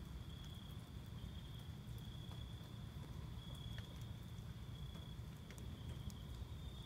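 Light rain shower: faint patter with scattered sharp drips over a steady low rumble, and a high-pitched trill that comes and goes.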